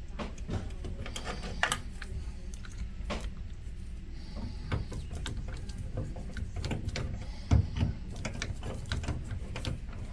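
Scattered clicks and taps of a plastic part being pressed and worked into a tight fit on a pinball playfield, over a steady low hum.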